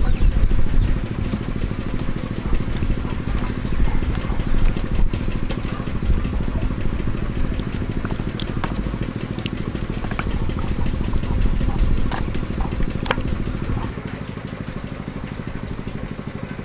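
Raw chicken legs squelching and clicking as they are turned by hand in thick wet batter in a steel bowl, over the steady low drone of a small engine running.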